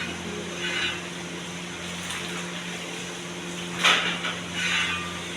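A steady machine hum runs throughout, with short clattering knocks of metal utensils or pots about a second in and twice near the end.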